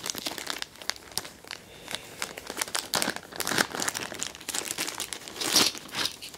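Clear plastic bag crinkling as hands handle and open it, a run of irregular crackles, louder about three and a half seconds in and again near the end.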